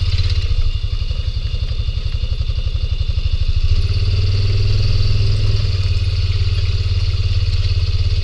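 Vehicle engine running steadily at low revs, with a fast low pulsing and a faint steady high whine over it.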